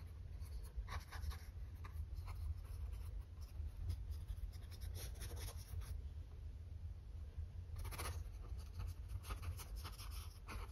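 Paintbrush strokes of acrylic paint on a stretched canvas: soft, scratchy brushing and dabbing at an uneven pace, over a steady low hum.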